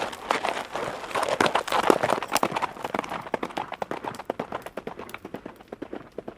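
Horse hooves at a gallop: a dense clatter of quick hoof strikes that starts suddenly and slowly fades over the last few seconds.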